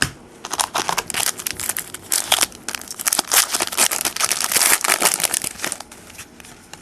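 Crinkling and tearing of a trading-card pack wrapper being opened and handled for about five seconds, then a few light clicks.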